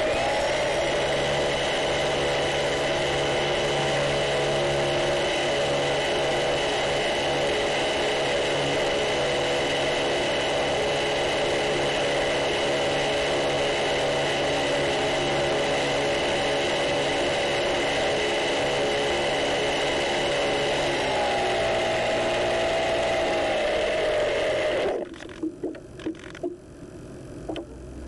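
Multiplex Funcub seaplane's electric motor and propeller running with a steady whine, heard close up from on board as the plane moves across the water. The pitch drops a little about three quarters of the way through, then the motor winds down and cuts off, and a few faint knocks follow.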